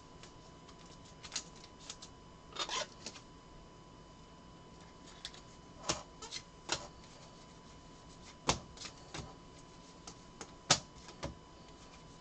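Panini Contenders football trading cards being leafed through by hand: an irregular scatter of soft clicks and snaps as cards slide and flick against one another.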